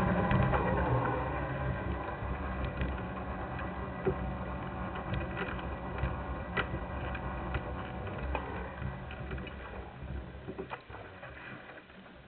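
Sport motorcycle engine running low at idle as the bike rolls slowly, fading steadily, with scattered light clicks and ticks from the bike.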